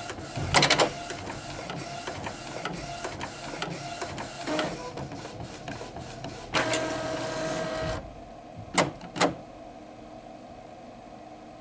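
Epson Stylus Photo R270 inkjet printer's mechanism working: a few sharp knocks just after the start, uneven clatter of the carriage and feed, a motor whine for about a second and a half from about six and a half seconds in, then two sharp knocks about nine seconds in and a faint hum. The knocks fit the knocking this printer makes at the end of its calibration, a fault that goes with prints drifting to the left.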